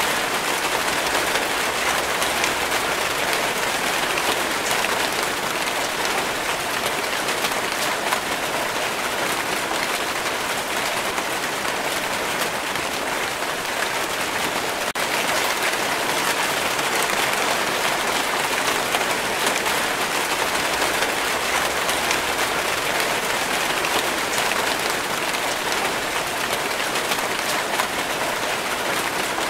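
Steady rain falling, a dense, even patter of countless drops with no let-up.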